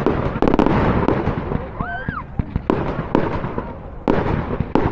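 Fireworks display: shells bursting overhead in a run of sharp bangs, with crackling between them.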